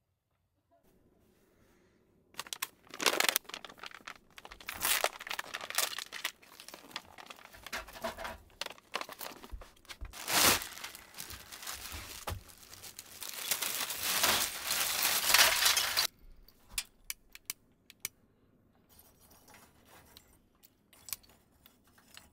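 Plastic bag crinkling and rustling as binchotan charcoal is taken out of it, starting a couple of seconds in and stopping about two-thirds through. Scattered sharp clicks follow as pieces of charcoal are set into the fire pit's steel bowl.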